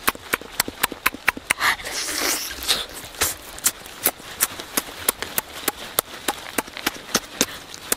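Close-up eating of roasted chicken: wet chewing and lip-smacking heard as a stream of sharp mouth clicks, several a second, with a brief softer rushing sound about two seconds in.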